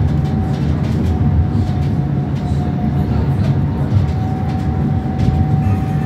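Cabin noise inside a Croydon tram: a steady low rumble, with a faint high whine that comes and goes.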